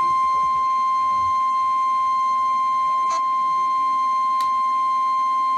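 NOAA Weather Radio warning alarm tone, a single steady high beep of about 1050 Hz with no change in pitch or level, heard through a weather radio receiver. The tone signals that a warning broadcast follows, here a severe thunderstorm warning.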